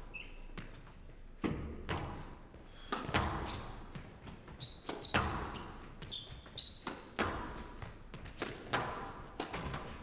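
Squash rally: sharp cracks of the ball struck by rackets and hitting the court walls, one every second or two at uneven intervals, with short high squeaks of shoes on the court floor between the shots.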